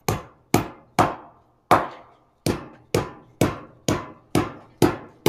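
Hammer tapping anchor bolts down into holes drilled in the floor to set them: about ten sharp strikes, roughly two a second, each with a short ring.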